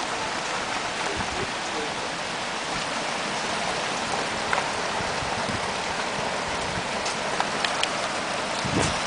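Heavy rain falling steadily, a dense even hiss with scattered louder drops ticking on nearby surfaces.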